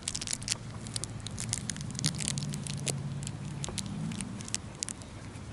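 German Shepherd puppy chewing and wrestling a plush toy in the grass right against the microphone: irregular crackling, rustling and clicking, with a low hum-like sound for about two seconds in the middle.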